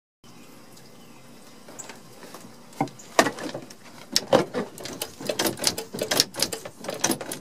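Irregular series of sharp clicks and knocks, starting about three seconds in and coming several times a second, over a faint steady hiss.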